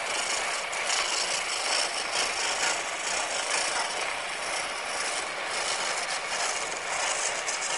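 Turning gouge cutting a spinning spindle of green wood on a treadle lathe: a continuous rasping scrape as the tool takes off shavings.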